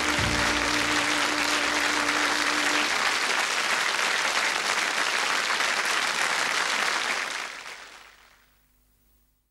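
Studio audience applauding over the closing theme music. The music stops about three seconds in; the applause carries on alone and fades out from about seven seconds in.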